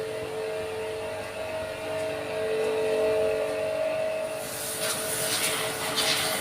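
Pressure washer running with a steady whine; about two-thirds of the way in, a loud hiss of water spray starts.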